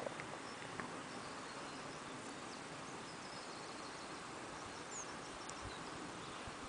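Faint open-air countryside ambience: a steady low hiss with a few brief, faint high bird chirps.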